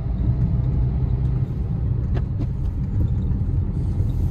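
Steady low road and engine rumble inside the cabin of a moving Maruti Suzuki Ciaz, with a couple of faint brief ticks a little after the middle.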